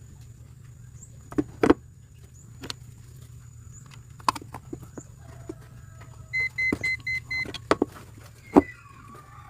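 A run of five short electronic beeps about six and a half seconds in, over a steady low hum, with scattered sharp clicks and knocks of handling and tools.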